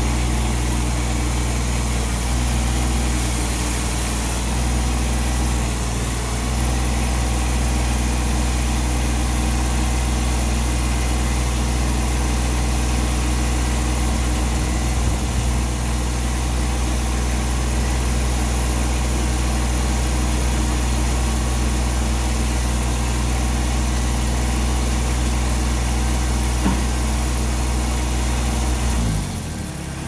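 Kubota BX-series compact tractor-loader-backhoe's three-cylinder diesel engine running steadily. Its note drops just before the end.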